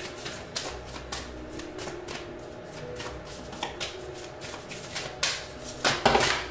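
Tarot cards being shuffled by hand: a run of quick flicks and slaps, with two louder bursts of shuffling about five and six seconds in.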